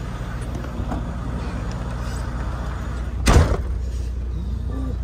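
A semi truck's cab door slams shut once, about three seconds in, over the steady hum of the truck's idling diesel engine.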